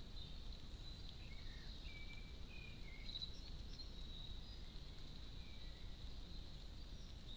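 Faint outdoor background noise with a thin steady high tone, and a few short whistled bird notes in the first three seconds and again around six seconds.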